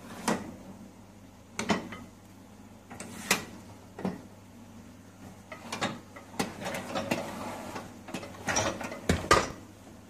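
Dishwasher wire racks clicking and rattling as they are handled: irregular sharp metal knocks and clicks, busier in the second half, with the loudest knocks near the end.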